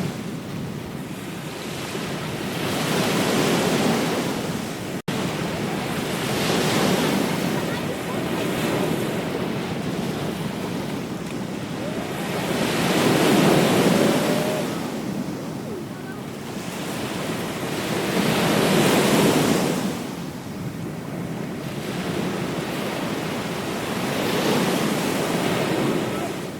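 Ocean surf: waves breaking and washing up the beach in long surges about every five or six seconds. There is a momentary dropout about five seconds in.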